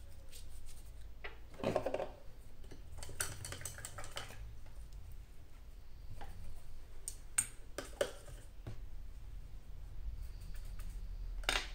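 Scattered small clicks and taps with a few short scratchy rustles, from handling brushes and paint pots while painting fabric, over a low steady hum.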